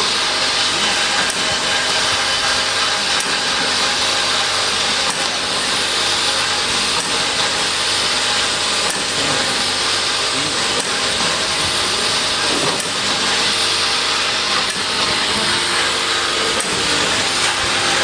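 Automatic bottle filling, plugging and capping machine running: a steady mechanical whirr from its motors, conveyor and rotary star wheel, with a few faint clicks.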